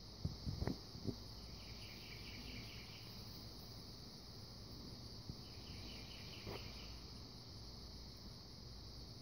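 Insects chirring steadily in a high, continuous drone, with two short spells of faster pulsed chirping, about one and a half seconds in and again around six seconds. A few faint knocks come in the first second.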